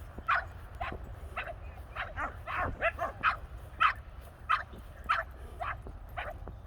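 A dog barking over and over in short, sharp barks, about two a second.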